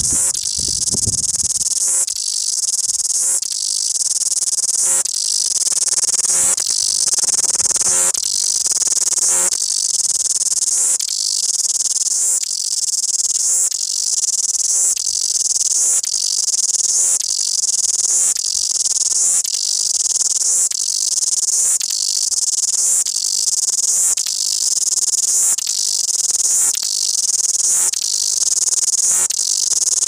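Cicada singing loudly: a high-pitched buzzing song that pulses in a steady rhythm, about one pulse every three-quarters of a second.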